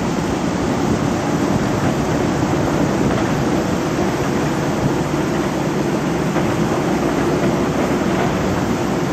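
Steady, even rushing noise with no distinct knocks or engine tones.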